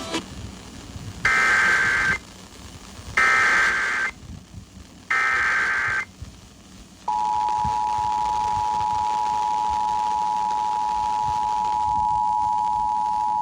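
Emergency Alert System activation: three roughly one-second bursts of SAME digital header tones about a second apart, then, about seven seconds in, the steady two-tone EAS attention signal. It heralds a severe thunderstorm warning from the National Weather Service.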